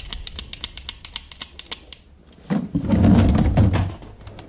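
A fast run of sharp clicks, about eight a second, for about two seconds. After a short gap comes a louder, deeper noise lasting about a second and a half.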